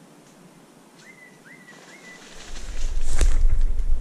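Three short high whistled bird calls about a second in. From a little past halfway, a loud rushing, rumbling commotion as a pheasant flushes with beating wings and the hunter swings his shotgun onto it, the head-mounted camera jostled by the sudden movement.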